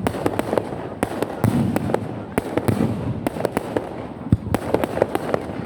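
Fireworks going off in quick succession: a string of sharp bangs, about two a second at irregular intervals, over a continuous rumble.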